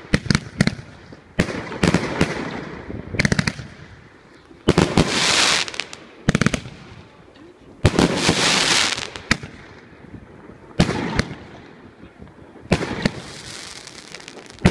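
A 724-shot mixed-calibre (30, 38 and 50 mm) firework cake firing in volleys. Clusters of sharp bangs come every two to three seconds, and each cluster is followed by a long hiss that fades away.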